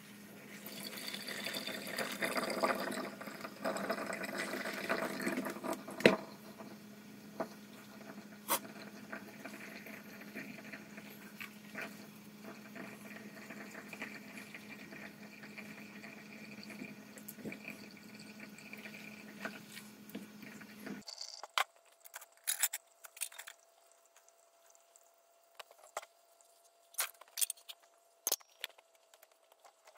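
Water heating in a pot on a wood-burning stove, with a few sharp crackles from the fire. About 21 seconds in it cuts abruptly to near silence with scattered clicks and taps.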